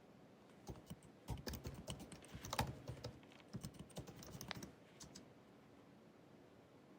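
Typing on the built-in scissor-switch keyboard of a 16-inch 2019 MacBook Pro: a quick run of key taps that starts just under a second in and stops about five seconds in.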